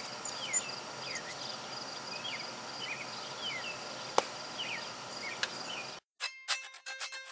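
Outdoor ambience of small birds chirping over and over and a steady high insect drone, with one sharp click about four seconds in. The ambience cuts off abruptly about six seconds in and plucked ukulele music starts.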